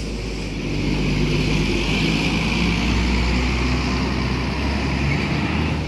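Large coach bus's diesel engine running as the bus drives past close by and turns in: a steady low engine note with a hiss above it. It gets a little louder after about a second.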